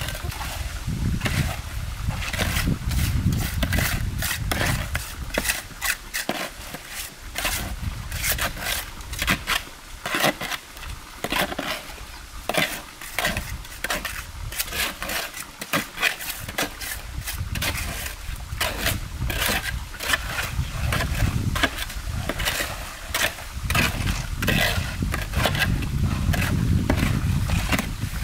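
A steel trowel scraping and smoothing wet cement mortar on a concrete edge, in many short, irregular strokes.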